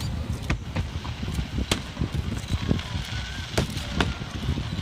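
Fireworks going off in an irregular series of bangs and crackles over a constant low rumble. The loudest booms come about a second and a half in and again near three and a half seconds.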